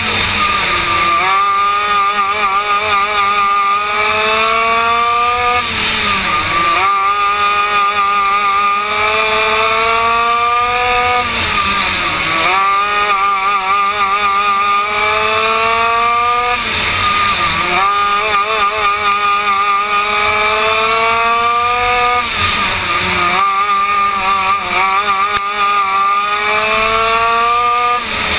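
A Yamaha KT100 two-stroke kart engine heard from on board, run hard: its pitch climbs steadily for about five seconds down each straight, then falls sharply as the throttle comes off for the corner, five times over, with tyre noise from the dirt surface.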